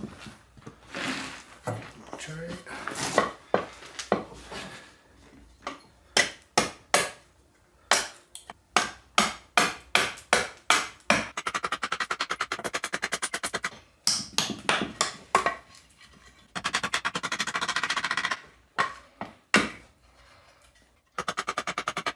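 Roughing out a wooden axe handle blank: single sharp knocks about two a second, alternating with stretches of fast, even rattling.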